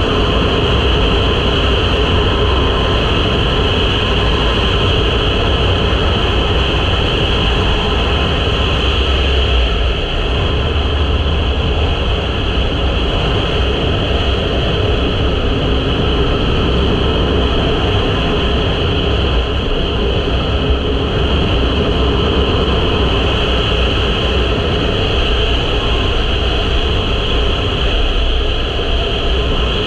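2023 KTM 500 EXC-F dirt bike riding at steady road speed: heavy wind rush over the microphone, with its single-cylinder four-stroke engine running steadily underneath.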